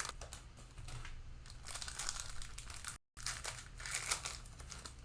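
Plastic cello-pack wrapper of a football card pack crinkling in irregular bursts as it is torn open and the cards are handled. The sound drops out completely for a moment about three seconds in.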